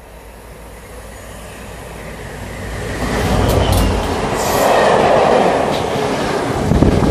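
A Class 67 diesel-hauled passenger train approaches and passes close by at speed. Its noise grows over the first three seconds as the locomotive nears and goes past, then holds as a steady rush of coach wheels on the rails, with a few brief high clicks.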